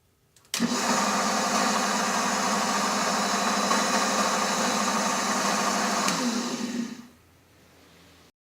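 Electric machine-tool motor running steadily at speed, starting abruptly and slowing to a stop about seven seconds in.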